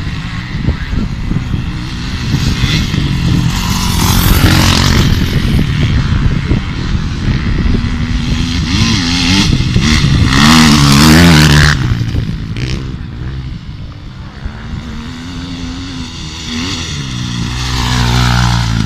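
Off-road dirt bikes riding past on a grass and dirt cross-country track, their engines revving up and down in pitch. The loudest pass comes about ten to twelve seconds in, and another bike passes close near the end.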